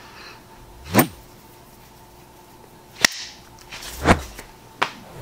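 Four short, sharp hand-on-hand slaps from quick hand movements: about a second in, at three seconds, at four seconds, and a smaller one just after.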